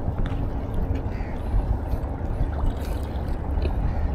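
Steady low rumble of sea water moving along the shore, with a couple of faint ticks.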